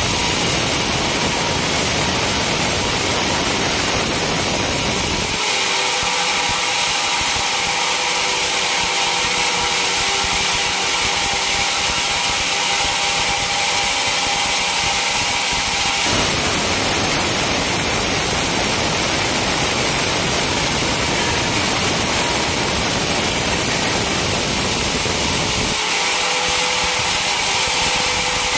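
Sawmill saw running steadily and cutting through a teak log, a loud continuous machine noise of motor and blade in the wood. Its tone changes abruptly about five, sixteen and twenty-six seconds in.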